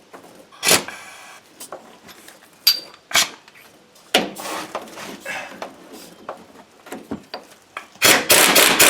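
Metal clicks and knocks of a socket and tool being set on a rusted bolt, then about eight seconds in a compact cordless impact wrench starts hammering loudly on the bolt to break it loose.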